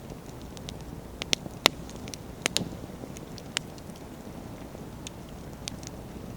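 Wood bonfire burning: a steady low rumble of flame with sharp crackles and pops of the burning logs, the loudest pops coming in a cluster between about one and three seconds in.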